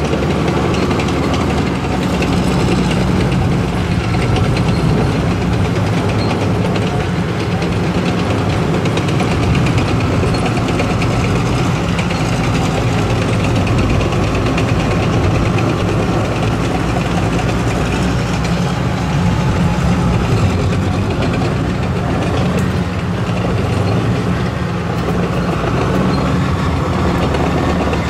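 Type 74 tanks driving past one after another, their diesel engines running and their steel tracks clattering on the road surface.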